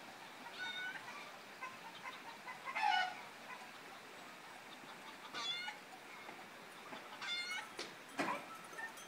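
About four short, faint animal calls, each under half a second and a couple of seconds apart, over a quiet background hiss, with a light knock near the end.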